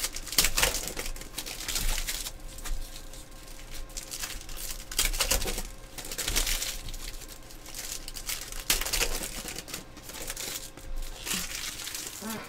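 Foil trading card pack wrappers crinkling and tearing as hands rip packs open, in a string of short rustling bursts.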